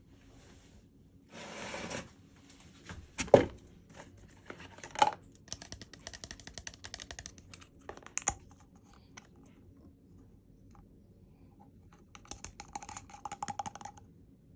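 Packaging being handled and opened by hand: a short tearing or rustling sound about a second and a half in, a few sharp knocks, and runs of small clicks and scratches.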